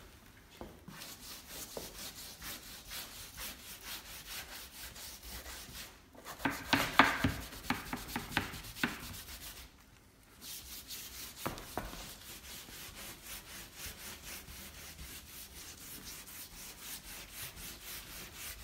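A hand scrub brush scrubbing a wet, weathered macrocarpa board in quick back-and-forth strokes, working in wood cleaner. The strokes grow louder and harder about a third of the way in, then stop for a moment just before halfway and pick up again.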